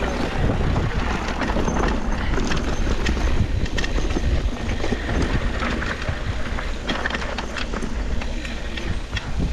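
Downhill mountain bike rolling fast down a rough dirt trail: tyre noise on the dirt with a constant clatter and rattle of the bike, and wind buffeting the microphone.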